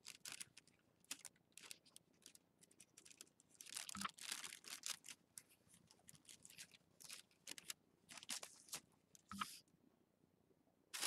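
Faint, scattered rustling and crinkling as the tissue-paper skin and drinking-straw frame of a tetrahedron kite cell are handled while string is threaded through a corner and tied.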